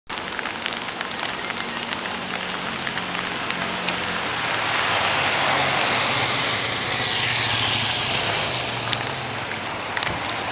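Rain on a wet city street: a steady hiss with scattered small drip ticks, swelling louder for a few seconds around the middle, over a faint low vehicle hum.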